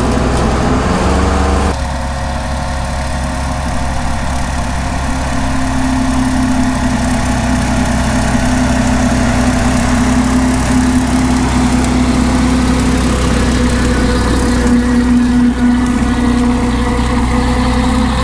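Ford 8N tractor's four-cylinder flathead engine running steadily under load, driving a rear-mounted rotary brush hog mower through long grass. About two seconds in, the sound changes abruptly from right on the tractor to a little way off beside it.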